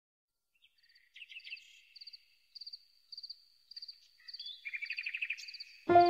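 Chirping wildlife: short, high pulsed trills repeated about every half second, with lower warbling chirps that grow louder in the last couple of seconds. Music starts just before the end.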